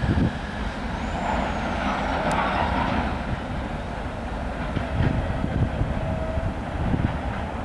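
Freight train of open gondola wagons rolling on the rails: a low rumble with irregular knocks from the wheels. A hiss rises for a couple of seconds about a second in.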